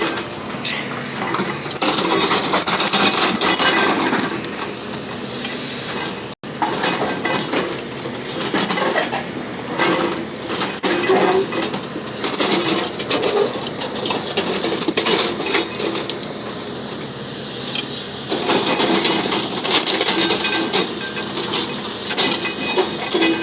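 A bulldozer working rock: metallic clanking and scraping of steel tracks and blade against stone, with a hiss underneath. The sound cuts out for an instant about six seconds in.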